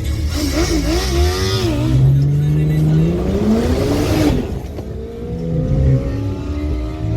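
Turbocharged BMW N54 twin-turbo straight-six under hard acceleration, its pitch climbing through one gear. It breaks off at a shift about four seconds in, then climbs again in the next gear.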